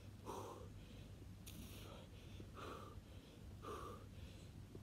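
A man breathing hard through a cardio exercise: four forceful, breathy exhales about a second apart, in time with his side-to-side hops.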